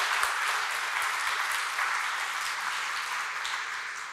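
Audience applauding: many hands clapping together, beginning to die down near the end.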